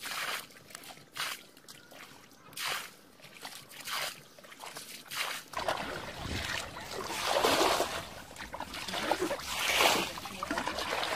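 Muddy water being bailed with a plastic container from a shallow puddle: short splashes of poured water about once a second, then louder, busier sloshing and splashing from about halfway through.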